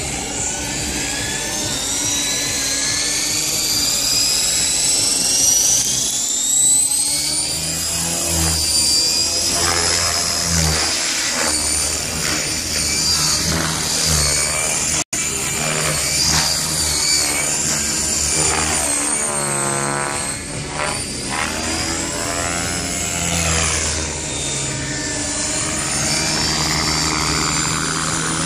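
Gaui X5 electric RC helicopter's motor and rotor whine climbing in pitch over the first several seconds as the head spools up, then holding high and wavering as the helicopter lifts off and flies aerobatics.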